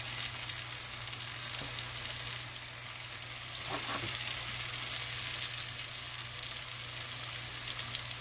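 Wontons deep-frying in hot oil: a steady sizzle full of fine, rapid crackles.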